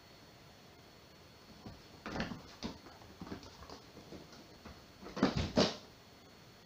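Two kittens at play on a blanket over a laminate floor: paws scuffling and thumping as they pounce and run, starting about two seconds in, with two heavier thumps about five seconds in.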